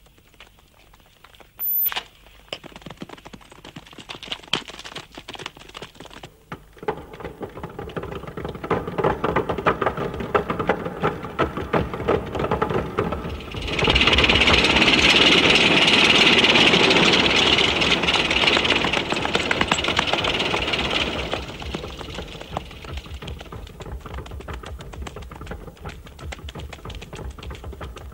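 T-34-85 tank driving, its engine running and its tracks clattering rapidly. There is a sharp crack about two seconds in. The clatter builds and is loudest, with a hiss, for about seven seconds around the middle, then falls back.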